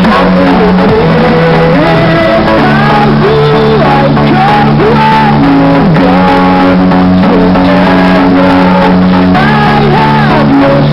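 Loud music: sustained low notes that change in steps under a sliding, wavering melody line.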